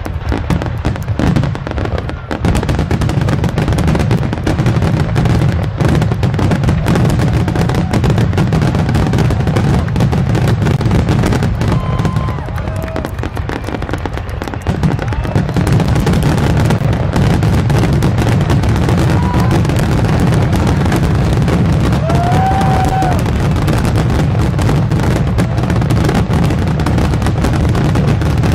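Aerial fireworks shells bursting in a rapid, near-continuous barrage, their booms running together into a steady low rumble with sharp bangs on top. The barrage eases slightly near the middle, then picks up again.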